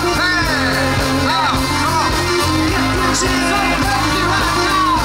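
Live pop band playing through a PA: a male singer over electric guitar and keyboards, with a steady low bass line throughout.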